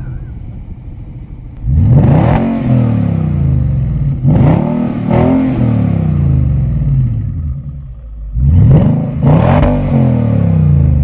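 Infiniti FX50's 5.0-litre V8 revved at the exhaust tip in five quick throttle blips, one and then two pairs, each rising sharply and falling back to idle. The exhaust runs on freshly replaced flex pipes, so the tailpipe note is heard without the earlier leak.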